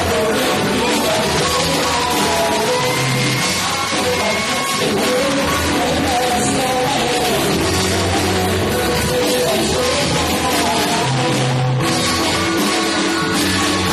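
A live rock band playing, with a singer, drum kit and electric guitars, loud and continuous.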